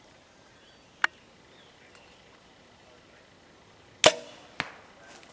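A single sharp click about a second in, then a compound bow shot about four seconds in: a loud crack with brief ringing as the string is released, followed about half a second later by a weaker, sharp hit as the arrow strikes the 3D foam target.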